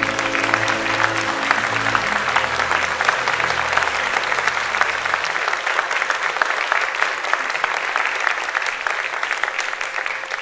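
Crowd applauding, a dense steady clapping of many hands. Music plays underneath for roughly the first half and then drops out.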